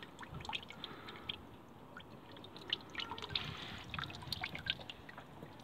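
Engine coolant dripping from the auxiliary coolant heater into a bowl, heard as irregular small drips. The heater hoses are clamped off with mole grips that are not tight enough, so coolant keeps leaking out of the glow-plug port.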